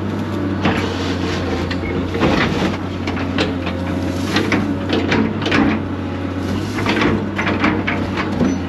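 Excavator engine running steadily, with repeated cracks, creaks and knocks as the bucket breaks small pine stumps and roots out of the ground.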